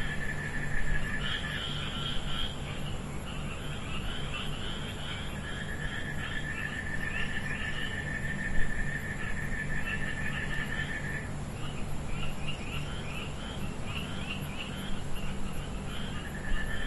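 Night chorus of insects and frogs: a high, steady trill that breaks off about eleven seconds in and starts again near the end, over quick chirping and a low hum. A single brief thump comes about eight seconds in.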